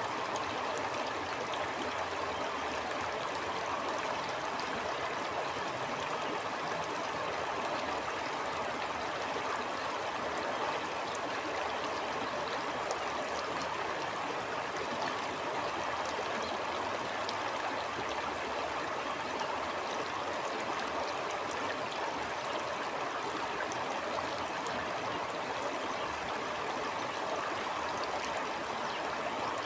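A stream flowing steadily over stones, a continuous rushing babble with small splashing ticks above it and no change in level.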